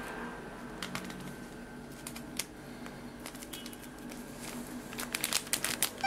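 Light clicks and rustling as cornstarch is tipped from a paper packet into a ceramic mug with a spoon in it, with a quick flurry of taps near the end.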